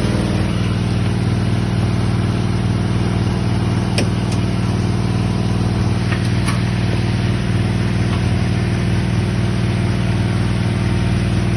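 An engine or motor running steadily at constant speed with a strong low hum, with a few faint clicks about four and six seconds in.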